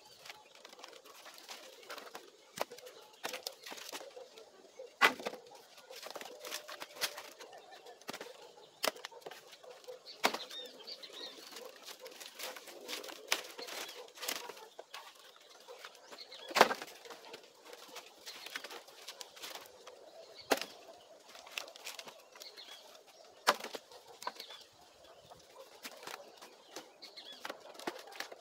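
Sticks and logs of hard wood knocking and clattering as they are stacked and fitted into place, in irregular knocks with a few sharper, louder ones.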